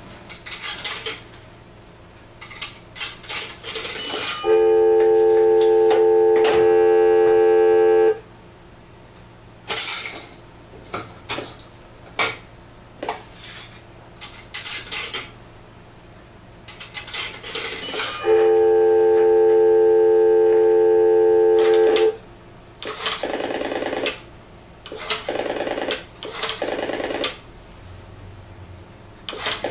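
Antique Western Electric three-slot payphone being worked by hand: metallic clinks, rattles and clicks from its coin slots and mechanism. Twice a loud steady tone lasting about three and a half seconds comes in, starting and cutting off sharply.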